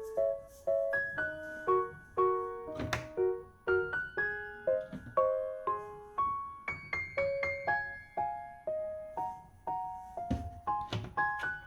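Background piano music: a light melody of single notes, each ringing and fading, with a brief knock about three seconds in.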